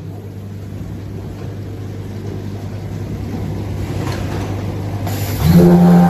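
Washing-powder packing machine's weigher running, with a steady electric hum from its feeders as powder pours into the weigh hoppers, slowly growing louder. About five and a half seconds in, a much louder hum with a clear pitch sets in.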